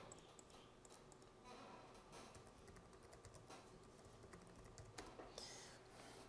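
Faint computer keyboard typing, quick soft keystrokes, with a few slightly louder clicks about five seconds in.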